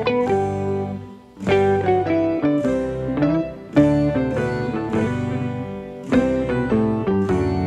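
Background music: a light melody of plucked string notes.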